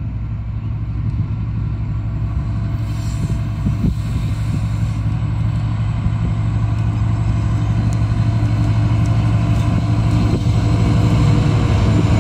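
TasRail TR class diesel-electric locomotive TR01 approaching under power at the head of four unpowered locomotives, its engine running with a steady low drone that grows gradually louder as it nears.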